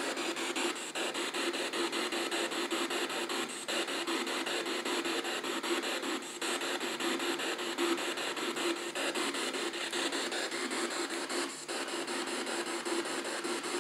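P-SB7 Spirit Box sweeping the FM band: a steady hiss of radio static chopped into rapid, regular clicks as the receiver jumps from frequency to frequency, with no clear voices.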